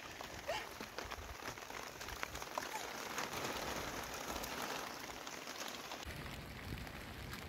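Steady rain falling, a dense hiss dotted with many small drop impacts.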